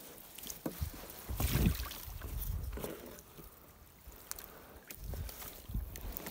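Splashing water and knocks from a small rowboat being worked on the water, coming in irregular surges, the heaviest about a second and a half in and again near the end.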